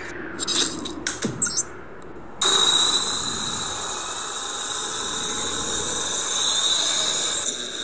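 Time-machine teleport sound effect: a loud hiss starts suddenly about two seconds in, carrying a steady high whine, with thin rising sweeps near the end, and drops away just before the end. Before it come a few short scuffing noises.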